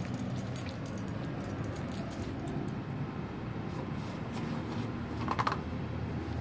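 Small dog moving on a tiled floor and eating from a paper cup: light clicks and jingling, with a brief louder sound about five seconds in, over a steady low rumble.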